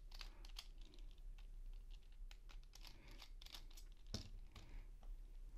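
Faint small clicks and scraping of a precision screwdriver turning out a small Phillips screw from the plastic battery holder inside a PS5 controller, with handling of the plastic shell. A louder tap comes about four seconds in, as the screwdriver is set down on the silicone mat.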